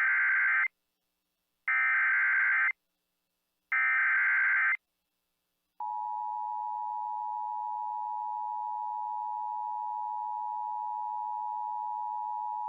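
Emergency Alert System SAME header: three one-second bursts of screeching digital data tones about two seconds apart. About six seconds in, a steady, unbroken attention tone begins: the alarm that opens a NOAA Weather Radio severe thunderstorm watch alert.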